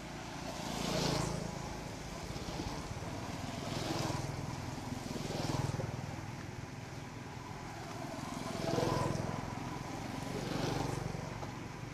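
Water splashing and swishing as a young monkey swims through a muddy channel, rising in surges every two or three seconds over a low steady rumble.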